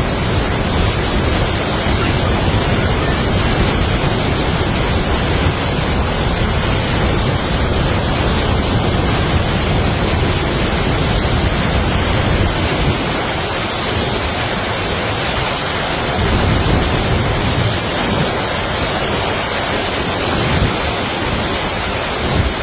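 Fast-flowing floodwater rushing, a steady loud noise with a deep rumble underneath that swells and eases.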